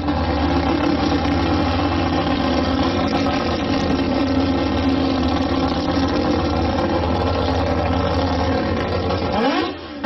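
Mazda 26B four-rotor rotary engine in an RX2 race car idling with a steady, choppy burble. About half a second before the end it dips and then begins rising in pitch as it revs.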